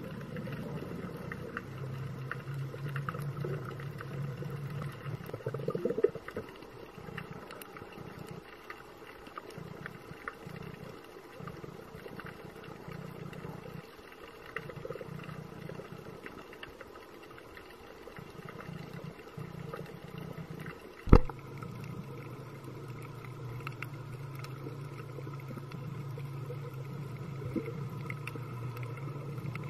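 Underwater ambience picked up by a camera in its housing: a low hum that fades in and out, with scattered faint clicks and crackles. A single sharp knock about two-thirds of the way through is the loudest sound.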